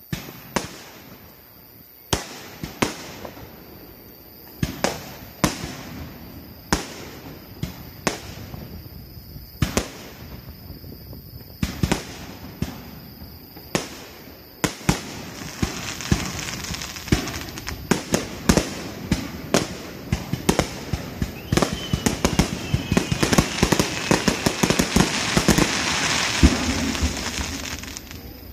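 Aerial fireworks: sharp shell bursts go off about once a second. About halfway through they turn into a dense barrage of bangs and crackling that builds toward the end.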